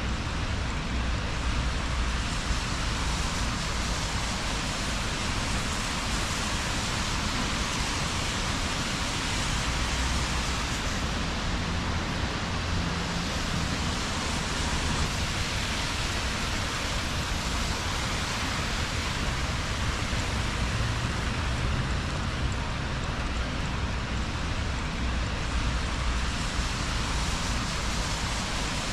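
Steady rain falling on wet city streets, an even hiss with a low rumble of traffic underneath.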